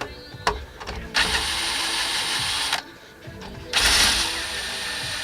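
Ratchet wrench turning fasteners on an engine, run in two quick spells of rapid clicking about a second and a half each.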